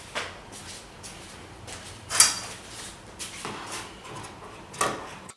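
Handling noise on a sewing worktable: a run of short rustles and scrapes of fabric and tools, the sharpest about two seconds in and another near the end.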